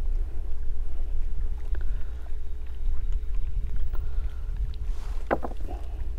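Wind rumbling on the microphone, with faint clicks and rustles of hands unhooking a small bream. One short, louder sound about five seconds in.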